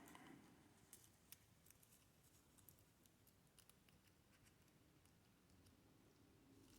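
Near silence: faint room tone with a few faint small clicks.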